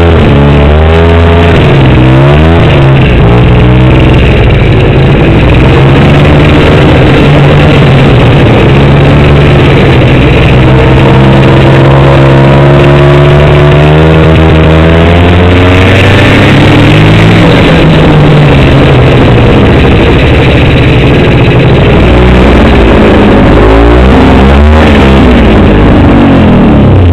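Snowmobile engine running loud under the rider's throttle, its pitch gliding up and down in the first few seconds and again near the end, holding fairly steady in between.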